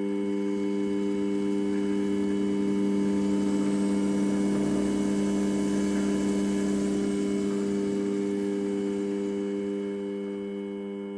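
HBM 250x550 Profi Vario lathe running under power: a steady hum with whirring that swells to its loudest around the middle and eases off near the end, and a faint high whine that rises and then falls in pitch.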